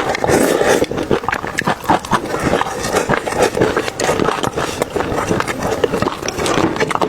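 Close-miked chewing and mouth sounds of someone eating: a quick run of wet, crackly clicks and smacks.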